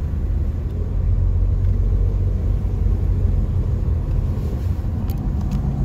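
Steady low rumble of a car driving slowly in traffic: road and engine noise from the moving vehicle, with a few faint clicks near the end.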